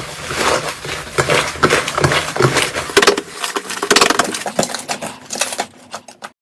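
Slime being played with: a dense run of wet crackling pops and clicks, thinning to a few scattered clicks near the end.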